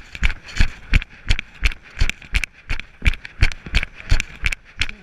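Running footsteps on tarmac: a steady thud about three times a second, picked up close by a camera worn by the runner.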